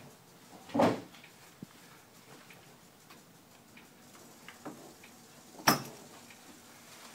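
A horse being handled in a stall: small clicks and rustles of the halter and blanket, a short breathy rush about a second in, and a single sharp knock a little before the end, which is the loudest sound.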